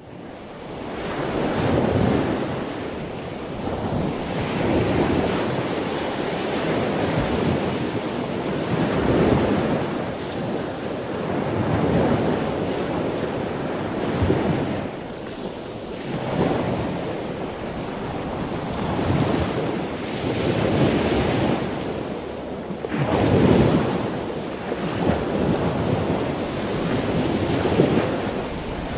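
Wind buffeting the microphone over choppy open ocean, with waves washing; the noise swells and eases every couple of seconds.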